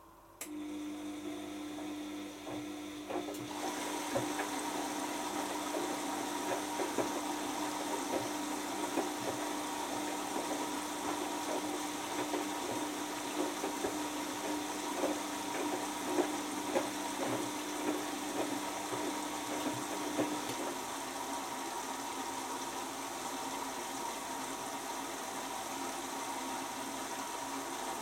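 Bosch Maxx 6 front-loading washing machine filling with water while it senses the load size. A steady hum starts suddenly, rushing water joins a few seconds later along with small splashes and knocks as the drum turns the laundry, and the hum stops about two-thirds of the way through while the water keeps running.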